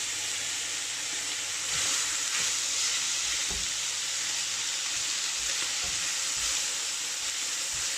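Chicken and vegetables sizzling as they fry in a stainless steel pan, stirred with a spatula that knocks and scrapes now and then; the sizzle swells a little about two seconds in.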